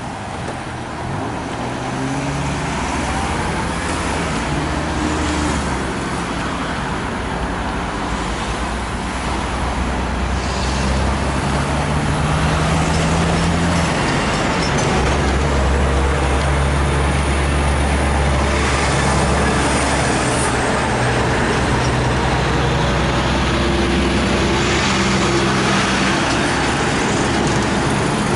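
Steady vehicle rumble and traffic noise that grows louder about twelve seconds in and stays loud.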